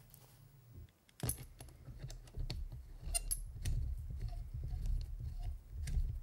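Small metallic clicks and ticks of a homemade caliper tool, welded to a cut-down spark plug, being handled and threaded into an engine's spark plug hole, over a low rumble of handling. It starts about a second in, after a near-silent start.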